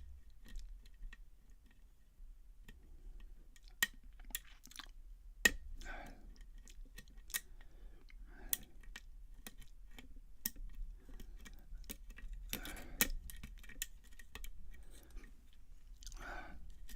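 Lock picking: irregular light metallic clicks and ticks of a pick and tension wrench working the pin stacks of a pin-tumbler challenge lock, with a few sharper clicks among them. The lock is not opening.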